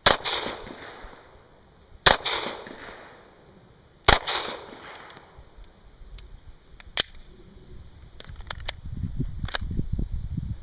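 Three pistol shots from Glock handguns, about two seconds apart, each echoing for about a second. A sharp click follows a few seconds later, with a few faint ticks after it.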